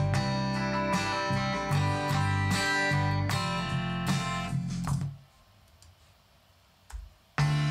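Guitar chords strummed in a steady rhythm, stopping abruptly about five seconds in. After a gap of near silence broken by one soft click, the strumming starts again just before the end.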